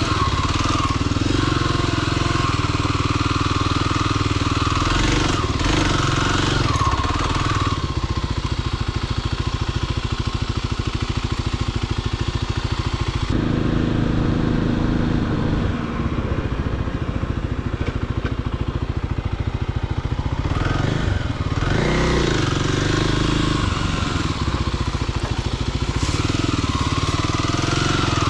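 Motorcycle engine running as the bike is ridden, its revs rising and falling briefly about three-quarters of the way through.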